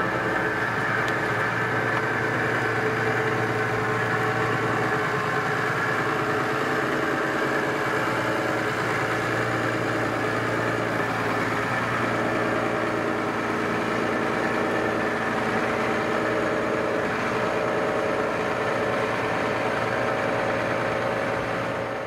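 New Holland T7.245 tractor's six-cylinder diesel engine running steadily under load as it pulls a Lemken reversible plough through the soil. The sound falls away just before the end.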